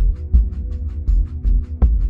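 Background music with a steady beat: deep bass pulses under quick high ticks, with a stronger hit near the end.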